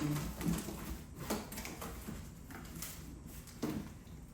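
Cardboard shipping box being opened by hand: scraping and rustling, with a few sharp crackles.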